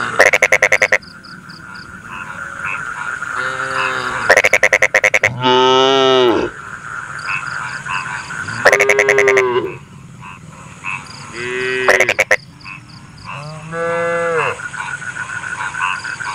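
Cattle mooing several times, each call a drawn-out, bending low moo. The moos alternate with about five loud bursts of rapid, evenly pulsed croaking, each about a second long.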